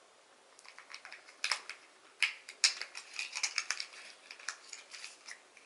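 Small product packaging being handled and opened by hand: a run of light clicks and crinkles, a few sharper snaps among them.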